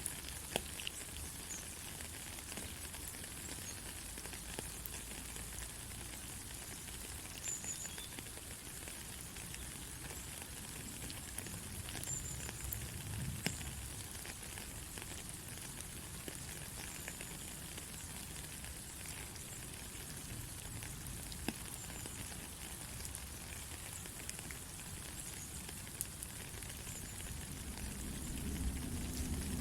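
Steady rain: a dense, even hiss of falling drops with scattered sharper drop ticks. A low rumble swells near the end.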